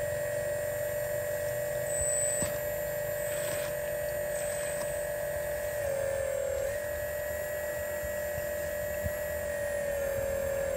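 A scale RC Hitachi excavator's motor running with a steady, high-pitched whine that sags briefly in pitch about six seconds in and again near the end, as the machine creeps on the trailer deck.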